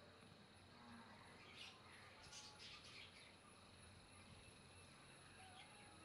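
Faint bird chirps, a short run of them between about one and a half and three seconds in, over near-silent background.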